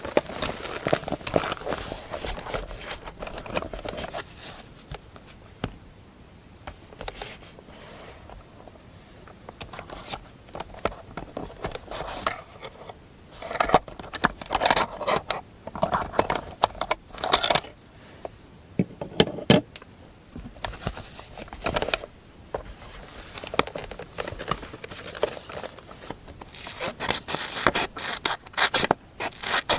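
Close-up paper crafting sounds: irregular scratching, scraping and rustling of paper and stationery, in busy bursts with quieter stretches between.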